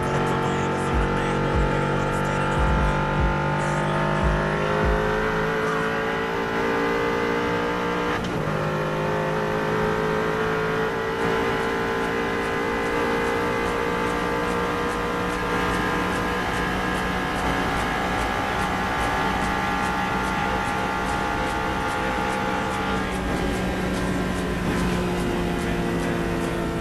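High-performance car engine pulling hard at speed, its pitch climbing slowly through long gears with two upshifts, about eight seconds in and near the end.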